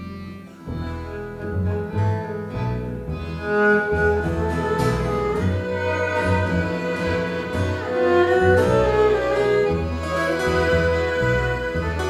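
Live Gypsy-style ensemble music: two violins over double bass, guitar and accordion. The music drops away briefly just after the start, then builds and grows louder.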